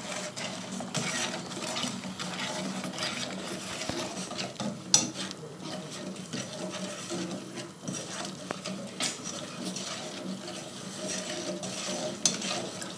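A whisk stirring melting chocolate with milk and oil in a saucepan, its wires clicking and scraping irregularly against the pan, with one sharper knock about five seconds in.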